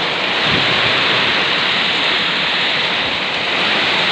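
Heavy tropical rain pouring down in a steady, even rush onto the street and roofs during a windstorm.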